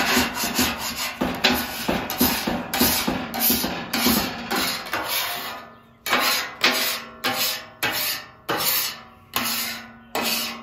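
Steel bench scraper and spatula scraping across a warmed steel griddle top in quick repeated strokes, about two a second, with a short pause about halfway. The strokes are loosening stuck-on cooked fat and food residue.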